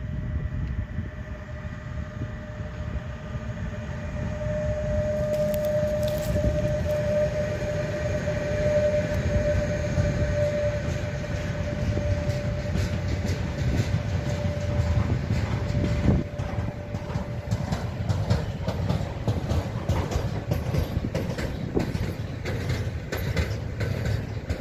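Electric locomotive and a long container freight train passing close by with a steady low rumble. A single steady whine is strongest a few seconds in, then the wagons' wheels clatter in quick sharp clicks as they run past.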